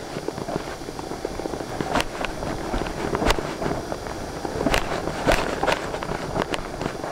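Wind rushing over a helmet camera's microphone while a windsurf board speeds across choppy water, with irregular sharp slaps and knocks as the board hits the chop.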